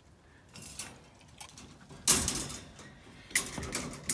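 Wire dog crate's metal door being handled: a string of metal rattles and clicks, with the loudest clank about halfway through and another cluster near the end.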